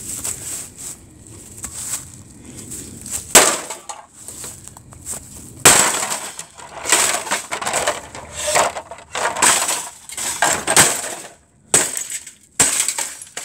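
A CRT television being smashed with repeated blows, its glass and casing crashing and breaking. The two hardest hits come about three and a half and almost six seconds in, then a rapid run of blows follows.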